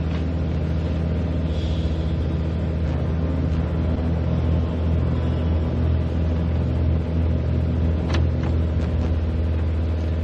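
Light aircraft's piston engine droning steadily at cruise.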